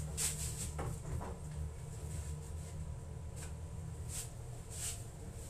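Steady low hum, with a few short rustles and soft taps from something being handled.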